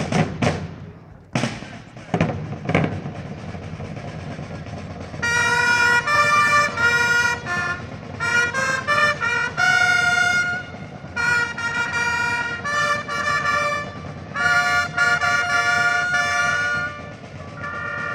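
Two drum strokes in the first few seconds, then from about five seconds in a fanfare on clarions, long valveless herald trumpets, playing a run of held notes broken by short pauses.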